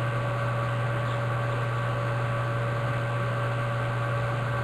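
Steady electrical hum with a few fixed tones over a constant hiss. Nothing else stands out.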